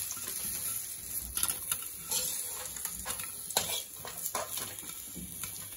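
A slotted metal ladle scraping and knocking against a metal kadai, several times, as oil-fried brinjal pieces are scooped out, over a faint sizzle of hot oil.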